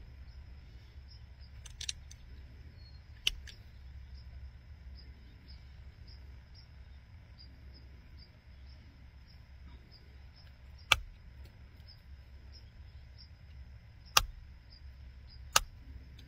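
Pressure flaking a European flint arrowhead: sharp clicks as the flaker's tip presses flakes off the edge of the flint, five times, spaced out, three of them in the second half. A faint steady high insect-like trill runs underneath.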